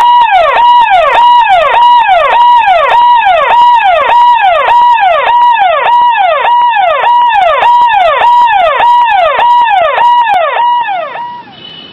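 Loud electronic siren-like sound effect: a held tone that drops sharply in pitch, repeated evenly about twice a second and stopping near the end.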